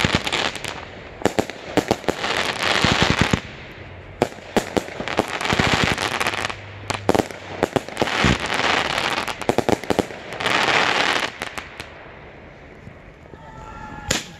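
Aerial fireworks display: repeated sharp bangs of bursting shells, with several waves of dense crackling from white crackle stars, thinning out near the end.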